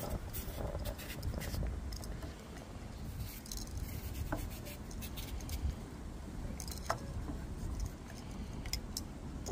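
Kitchen knife peeling strips of skin off a cucumber: faint scraping strokes with scattered light clicks, two sharper ones near the middle, over a low steady rumble.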